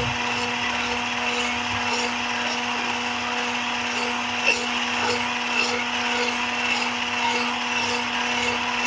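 Electric hand blender running at a steady speed with an even motor hum, beating cream and condensed milk.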